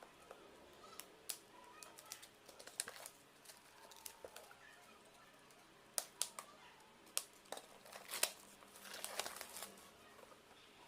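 A K-pop album's plastic wrapping and packaging crinkling as it is unwrapped and handled. Scattered sharp clicks and rustles, busiest in the last few seconds.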